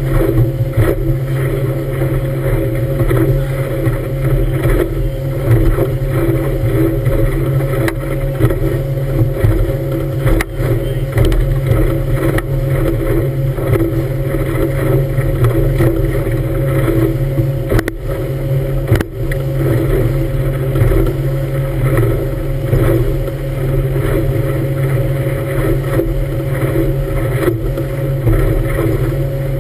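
Motorboat engine running steadily at speed, with water rushing and spraying along the hull. A few brief knocks, such as the hull hitting a wave, stand out in the middle.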